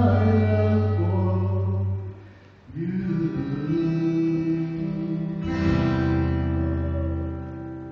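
Worship band music with singing and guitar: long held chords over a deep bass note, breaking off briefly about two seconds in before the next chord, which slowly fades near the end.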